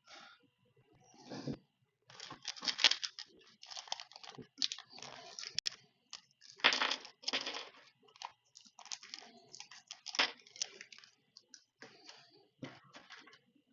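Irregular crinkling and rustling in short, uneven bursts with a few sharp clicks, as parts and materials are handled by hand.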